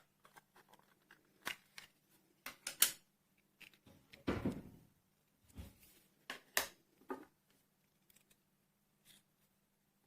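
Small hard objects being handled: scattered clicks and taps, with a longer rustling knock about four seconds in, over a faint steady low hum.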